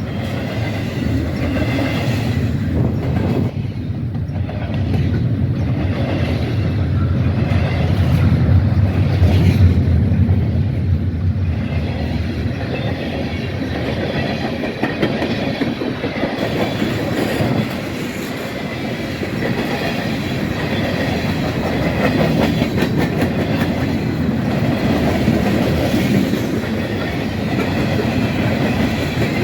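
Freight train cars rolling past, a steady loud rumble of wheels with a clickety-clack over the rail joints, swelling slightly partway through.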